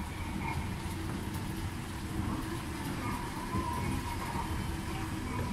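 Escalator running under a rider: a steady low rumble with a constant hum.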